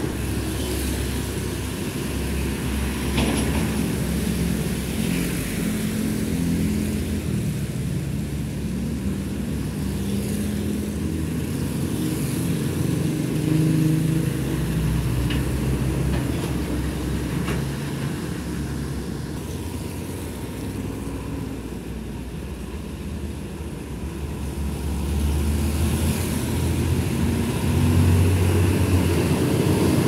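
Heavy diesel trucks driving past one after another on a wet road, engines running low with tyre noise from the wet surface, and motorbikes passing among them. It grows louder near the end as a truck passes close.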